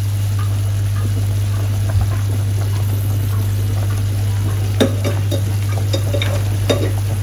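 Tomato broth boiling hard in a stainless steel pot, bubbling and spattering steadily over a low hum. A few sharp clicks of chopsticks against the pot, the loudest about two thirds of the way through.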